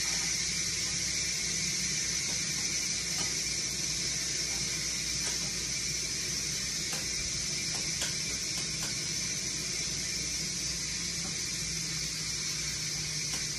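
A steady hiss from food cooking on the stovetop, with a few faint clicks of a utensil against the pot.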